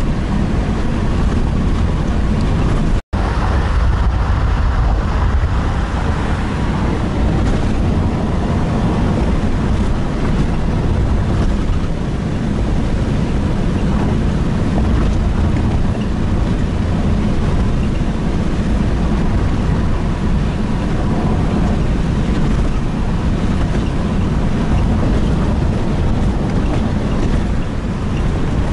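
Steady road noise heard from inside a moving car's cabin: engine and tyres running on asphalt, cutting out for an instant about three seconds in.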